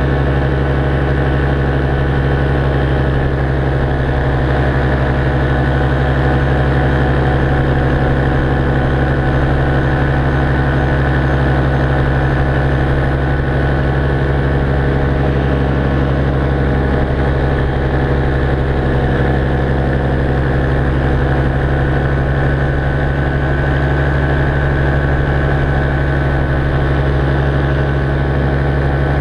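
Paramotor engine and propeller running steadily in flight, a constant loud drone that holds one pitch without revving up or down.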